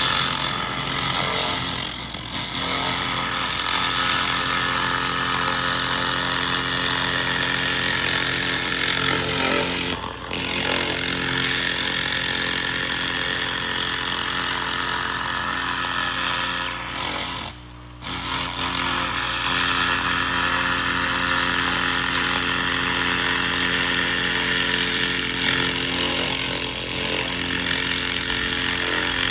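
A 2000 W handheld laser rust remover firing on rusty metal: a steady, loud hiss that cuts out briefly about ten seconds in and again for a moment near eighteen seconds, over a constant machine hum.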